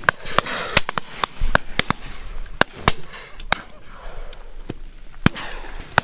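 Shotguns firing at driven partridges from a line of guns: about a dozen shots at uneven spacing, some close and loud, others fainter from further down the line. The shots come thick for the first three and a half seconds, then a pause, then one loud shot about five seconds in.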